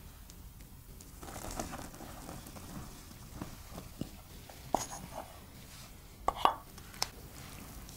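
Flour poured from a glass measuring jug into a glass mixing bowl of mashed potato, a soft rustling hiss, with a few sharp taps, the loudest about six and a half seconds in.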